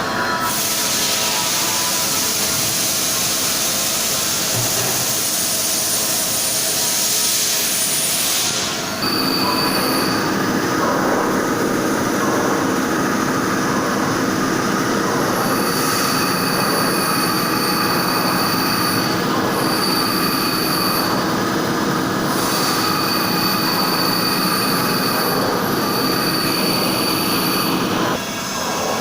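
CNC milling machine running and cutting, loud and continuous. It starts as a high hiss, and about nine seconds in it changes to a steadier whine with high squealing tones that come and go.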